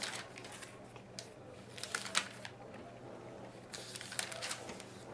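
Thin pages of a thick reference handbook being turned and rustled by hand, in several short bursts of crisp rustling, the busiest about two seconds in and again near the end.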